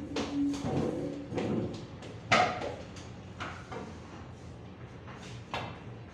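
Sinuca balls clicking against each other on the table: one sharp click about two seconds in, then a few fainter knocks.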